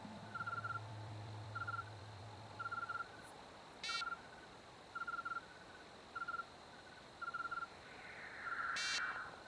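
Faint night-time animal ambience: short trilled chirps repeating about once a second, with two brief rattling calls, one near the middle and one near the end. A low bass note dies away over the first few seconds.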